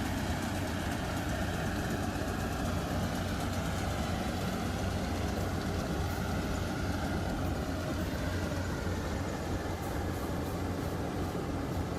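Rice-harvesting machine's engine running steadily, an even low hum with mechanical noise and no change in speed.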